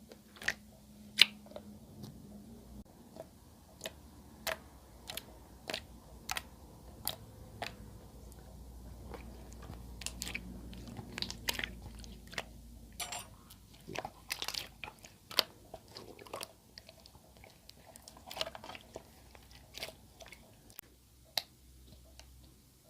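Clear slime being handled by hand, giving irregular sharp clicks and pops, roughly one or two a second, with a few quick clusters in the middle.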